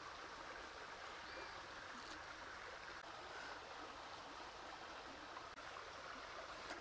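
Faint, steady background hiss with no distinct events.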